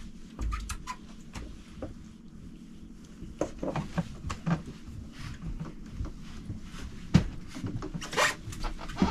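Irregular knocks, taps and rubbing from people handling fishing gear while a hooked kokanee is reeled in, with a brief rushing hiss about eight seconds in.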